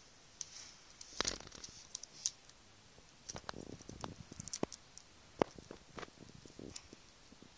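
Small plastic model-kit parts being handled and fitted together: irregular light clicks and taps with brief rustles, the sharpest click about five and a half seconds in.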